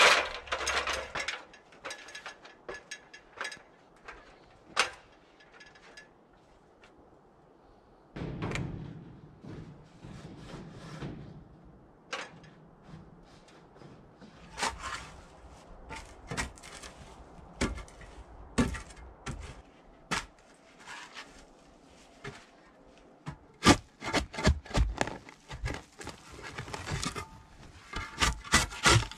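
Scattered knocks and clatters from an aluminium ladder being handled and climbed. About two-thirds of the way through, a quick series of sharp strikes begins: a spade chopping into soil and roots around a red pine stump.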